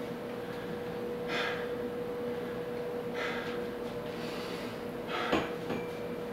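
A man breathing hard and forcefully through his nose, about one sharp breath every two seconds, as he grips gymnastic rings before a set of pull-ups. A steady hum runs underneath, and there is a single click about five seconds in.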